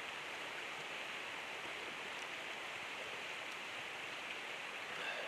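Steady, even rushing noise with no distinct events, like running water or a hissing burner.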